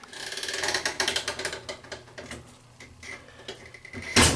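Ratcheting clicks of a GE washing machine's timer dial being turned to set a cycle, then a loud clunk near the end as the machine is started.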